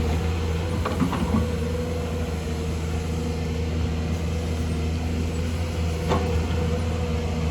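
Excavator's diesel engine running at a steady speed, with a couple of short knocks about a second in and again near six seconds.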